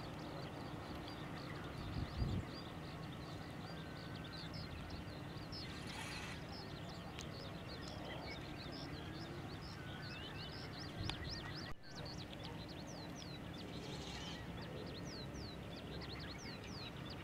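A large flock of shorebirds calling on a tidal mudflat: many short, high chirps overlapping without a break, over a steady background hiss. A brief low thump about two seconds in.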